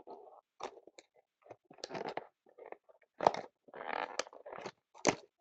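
Crinkling, crackling and tearing of packaging as a sealed trading-card box is opened, in irregular bursts with a couple of sharper snaps.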